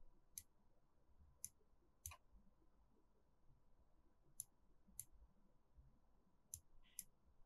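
Faint computer mouse clicks: about eight short, sharp single clicks at irregular intervals, made while placing the bend points of a wire in the editor.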